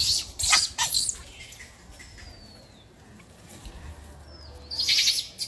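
Macaque giving short, harsh, high-pitched cries in quick succession during the first second, then a quieter pause with a faint falling chirp, and another shrill bout about five seconds in.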